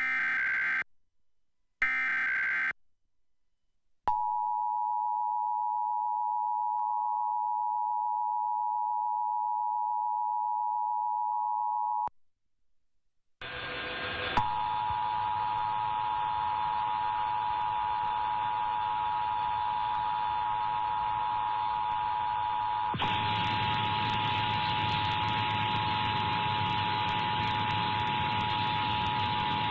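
Emergency Alert System broadcast tones. First come two short bursts of screeching SAME header data, then the steady two-tone EAS attention signal for about eight seconds. After a brief silence, the two-tone attention signal returns under a steady hiss and keeps going.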